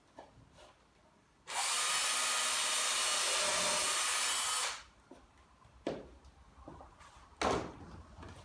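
Cordless drill boring a pilot hole into a wooden shelf board, so that the screw will not split it. It runs steadily for about three seconds, starting a second and a half in, then stops sharply. A couple of short knocks follow.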